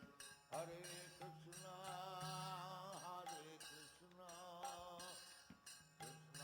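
Soft background music: a wavering melody over a steady low drone.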